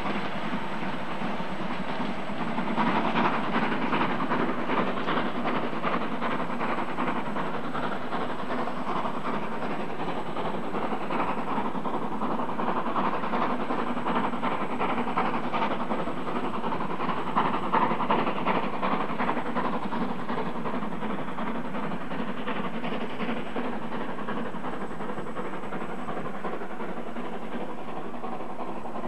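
Harz narrow-gauge steam locomotive hauling a train of coaches, its exhaust beats repeating steadily, a little louder a few seconds in and again past the middle.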